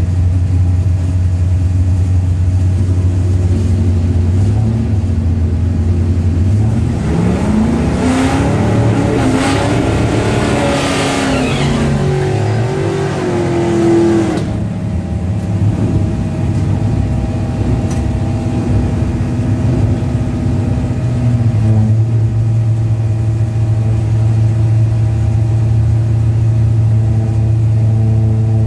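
Small-block Ford 302 V8 of a 1984 Fox-body Mustang bracket car idling, heard from inside the cockpit. About seven seconds in, engine sound swells and climbs in pitch, then falls away again by about fourteen seconds, after which the idle settles slightly higher and steady.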